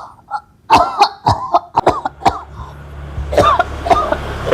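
A child coughing over and over: a quick run of about six short coughs in the first two and a half seconds, then a few more, spaced further apart.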